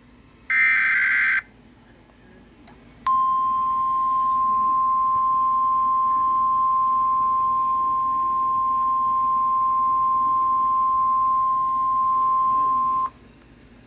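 The last short buzzy data burst of an Emergency Alert System transmission, just under a second long, then a single steady electronic alert tone just above 1 kHz that sounds for about ten seconds and cuts off abruptly, over a faint low hum.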